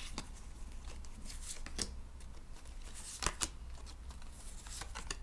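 Tarot cards being shuffled and handled by hand: faint, irregular flicks and taps of the cards, with a few sharper snaps in the middle.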